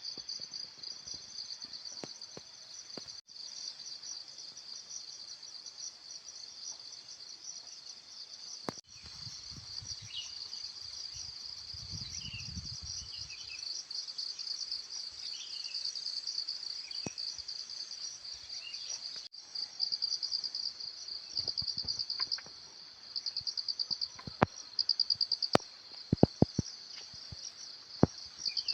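Insects chirring steadily in a high, shrill band, breaking into rapid pulsed trains in the second half. A few faint bird calls come through in the middle, and a handful of sharp clicks sound near the end.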